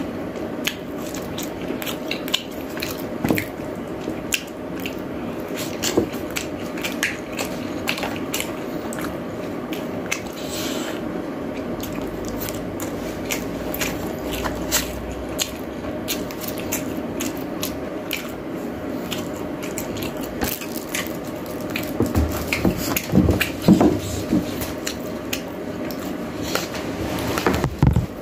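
Close-up eating sounds: a person chewing and biting food with wet, squishy mouth noises and many small clicks and smacks. Now and then chopsticks tap on plastic food trays.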